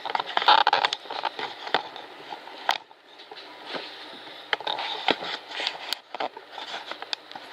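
Aerosol spray can of clear coat being shaken, its mixing ball rattling inside as irregular sharp clicks and knocks.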